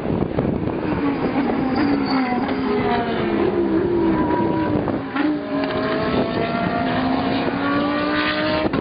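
GT race cars passing at speed, several engine notes at once, their pitch falling as they go by.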